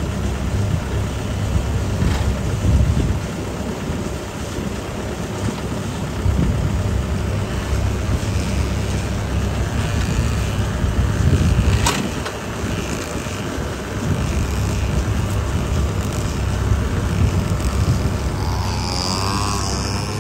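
Diesel engine of a Kubota 70 rice combine harvester running steadily, with wind on the microphone. A single sharp knock near the middle.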